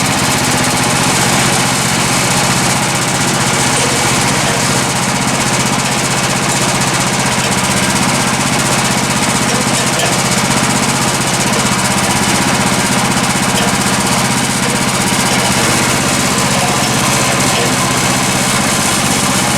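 Gasoline engine of a Woodland Mills HM126 portable bandsaw mill running steadily at a constant, loud pitch.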